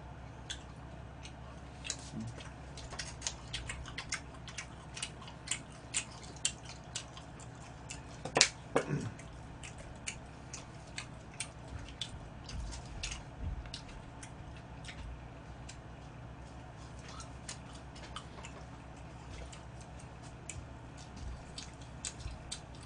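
Scattered light clicks and taps of food being handled in plastic takeout trays on a table, with one louder knock about eight seconds in, over a steady low room hum.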